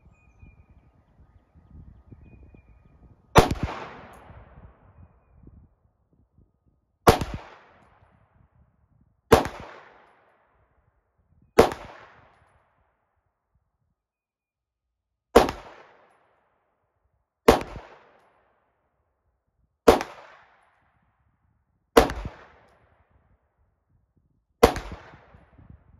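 CZ TSO 9mm pistol firing CCI Blazer Brass 115-grain FMJ rounds in slow, deliberate single shots. There are nine sharp reports, each trailing off in a short echo, spaced about two to four seconds apart; the first comes a little over three seconds in.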